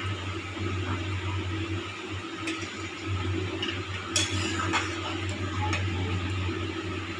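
Curry simmering in a metal pan on a gas stove under a steady low hum, with a few light clinks of a spatula against the pan, the sharpest about four seconds in.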